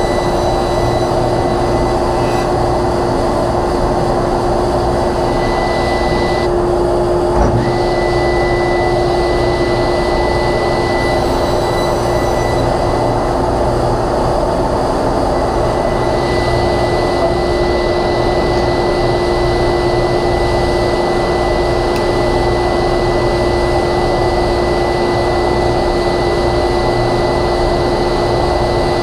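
Workshop dust collector and sliding table saw running steadily, a constant drone with a steady whine. One small knock about seven seconds in.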